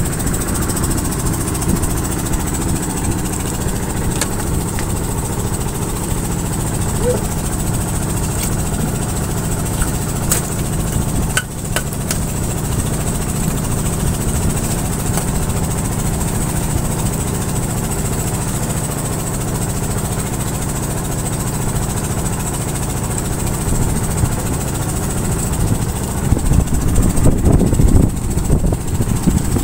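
Engine aboard a lift-net fishing boat running steadily, a constant low drone; it grows louder and rougher near the end.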